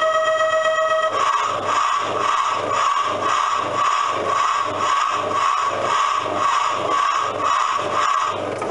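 Steam-engine kiddie ride's train sound effect: an even, rasping chuffing at about three chuffs a second, with a brief whistle-like tone in the first second. The chuffing stops just before the end.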